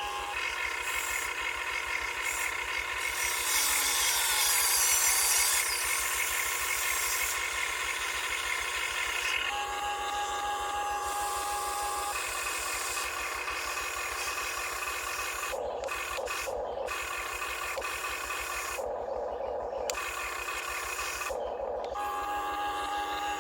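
1:20-scale radio-controlled CAT 330DL excavator's electric motors and gearboxes whining as it runs, the pitch shifting as different functions are worked. About four seconds in there is a louder stretch of rough scraping.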